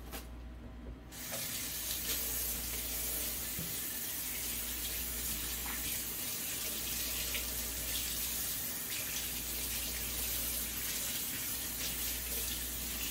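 Kitchen faucet running into a stainless steel sink as a fish is rinsed under the stream by hand. The water comes on about a second in and then runs steadily.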